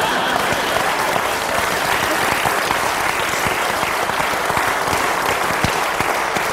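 A studio audience laughing and applauding steadily.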